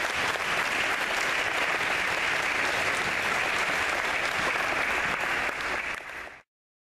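Audience applauding steadily, then fading and cutting off abruptly about six seconds in.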